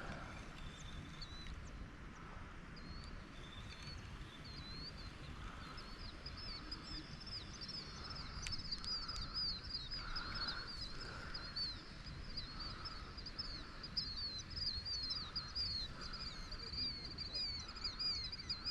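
A songbird singing a long, fast run of high chirps, starting faintly and growing steady and dense a few seconds in. Softer, lower call notes repeat about once a second, over a low steady outdoor background noise.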